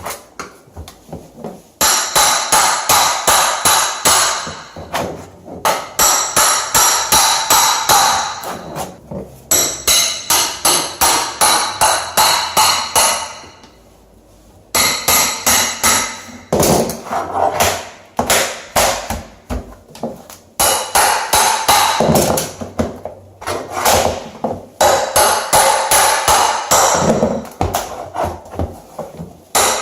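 Hammer striking a flat bar to drive it under a stuck vinyl floor tile: rapid metallic taps, several a second, in runs of a few seconds with short pauses and one longer pause about halfway.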